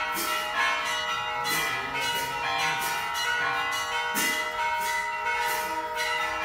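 Hindu temple bells struck over and over, each new strike ringing out over the last so the tones pile up into a continuous clangour.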